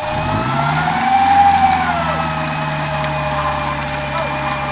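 Electric winch on the front bumper of an off-road 4x4 starting up and running under load, reeling in its cable: its motor hum rises quickly in pitch, then holds steady. A higher whine runs alongside and swells briefly about a second in.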